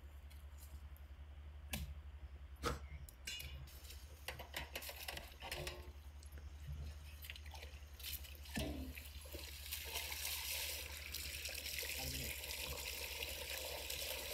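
A few sharp knocks in the first seconds, a cleaver chopping mutton on a wooden block, then from about eight seconds in a steady wet sloshing as hands wash minced mutton in a pot of water, rinsing out the blood. A low steady hum runs underneath.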